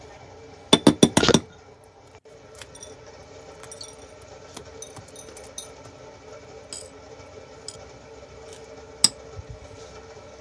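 A quick run of sharp clicks and clinks from small hard objects about a second in, then scattered light ticks and one more sharp click near the end, over a faint steady hum.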